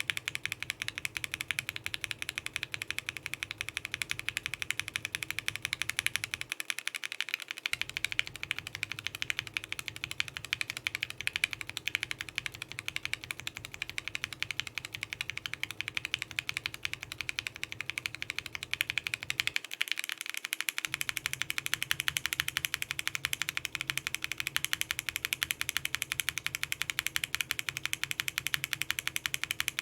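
Continuous fast typing on a mechanical keyboard with linear Gateron Ink frankenswitches (67 g springs, PBT keycaps): a dense, even clatter of keystrokes. It breaks off for about a second twice, where the switch set is changed.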